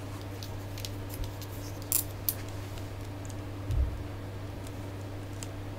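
Plastic action figures being handled: a few light clicks around two seconds in and a soft bump about four seconds in, over a steady low hum.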